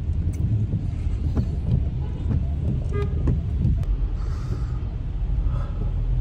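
Car driving on a flooded road in heavy rain, heard inside the cabin: a steady low rumble of engine and tyres, with a brief hiss about four seconds in.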